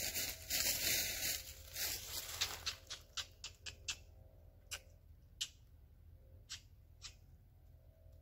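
Dry fallen leaves rustling loudly for about two seconds, then a run of sharp crunches in the leaf litter that thin out to single ones and fade.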